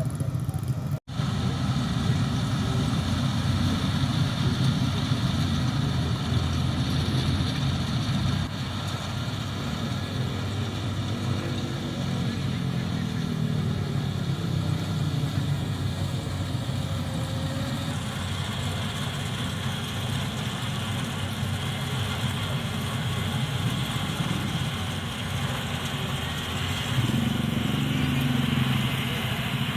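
Yanmar YH850 rice combine harvester's engine running steadily, with a momentary break about a second in.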